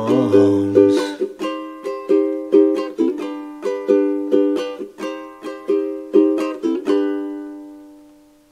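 Acoustic ukulele strummed on a G chord in a steady, quick strumming rhythm. The strumming stops about seven seconds in and the last chord rings out and fades away.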